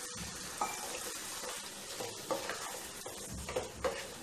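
Potato curry with freshly added water sizzling in a non-stick kadai under a steady hiss, while a wooden spatula stirs through it with a series of short scrapes against the pan.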